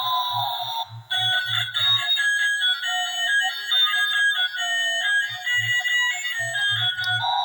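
Electronic toy's sound chip playing a quick jingle of short beeping notes through a small, tinny speaker, with a wailing siren tone before the tune, falling in pitch, and starting again, rising, at the very end.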